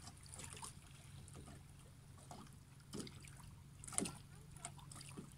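Faint shoreline ambience: small waves lapping quietly at the rocks and the beached dinghy, with two soft knocks about three and four seconds in.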